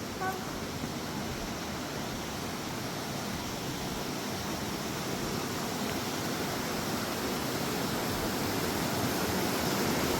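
Waterfall rushing steadily, an even hiss of falling water that grows gradually louder.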